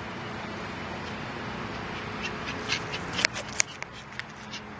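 Steady outdoor background noise with a faint low hum. About halfway through, a scatter of short sharp clicks and crackles begins, two of them louder than the rest.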